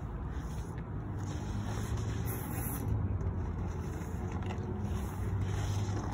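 Steady low background rumble with no clear single source, and a brief rustle a little over two seconds in.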